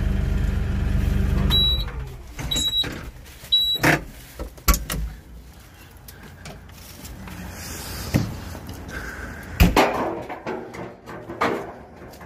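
LS XU6150 tractor's diesel engine running steadily, heard from inside the cab, then shut off under two seconds in. Three short beeps follow, then a series of clunks and knocks as the cab door is opened and someone climbs down the steel steps.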